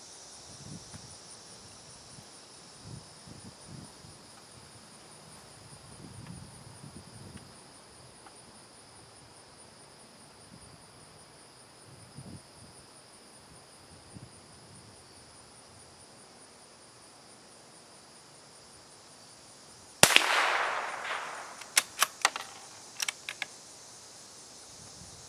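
A single shot from a CZ 452 American bolt-action .22 LR rifle near the end, a sharp crack with a short ring-off, followed a couple of seconds later by several quick metallic clicks as the bolt is worked. Insects trill steadily in the background.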